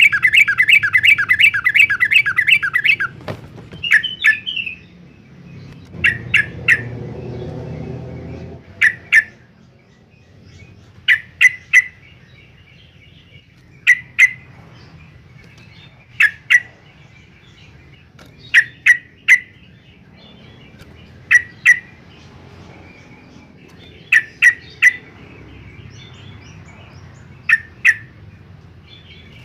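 Yellow-vented bulbul calling: a fast run of loud, rapid chirping notes for about three seconds, then short calls of two or three sharp notes repeated every two to three seconds.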